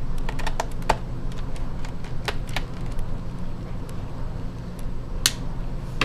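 Small screwdriver backing a screw out of a laptop's plastic bottom case: scattered light clicks and ticks of tool and screw on plastic, with one sharper click about five seconds in, over a steady low hum.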